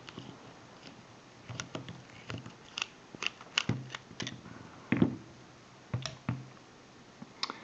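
Irregular small metallic clicks and taps as an American Series 100 padlock is handled and opened up to look inside, beginning about a second and a half in.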